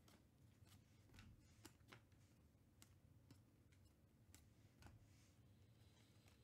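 Near silence with faint, irregular clicks, a few a second, as 2021 Panini Mosaic football cards are slid off a stack and flipped over by hand.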